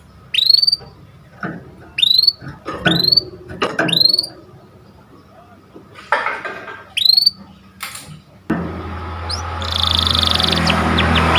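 Canary calling with short, sharp chirps that sweep up in pitch, about five of them spaced a second or so apart. Over a steady low hum, it then breaks into a fast rolling trill and quick falling notes near the end.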